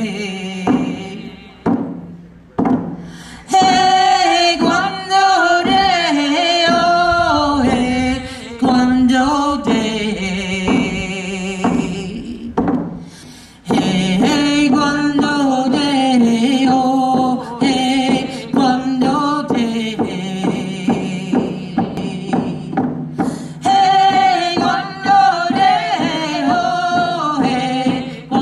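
Women singing a song together while beating hide frame hand drums with sticks in a steady beat, with two short breaks between phrases.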